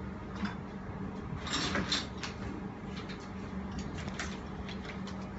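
Hardware being handled on an air-conditioner mounting stand: a few short scrapes and knocks, bunched together about two seconds in, with single clicks before and after, over a steady low hum.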